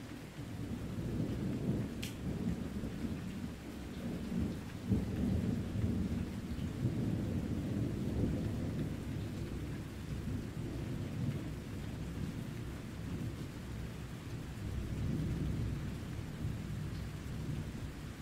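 A long, deep roll of thunder rumbling and swelling, loudest about five seconds in, over steady rain. A single sharp tick about two seconds in.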